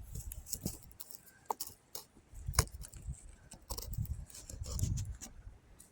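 Camera handling noise close to the microphone: irregular clicks, scrapes and low bumps as the camera is set and adjusted on rocks in snow.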